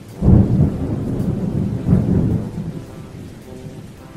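Thunder rumbling over steady rain, a stock rain-and-thunder sound effect: a loud rumble breaks out about a quarter second in, swells again about two seconds in, and dies away under the rain.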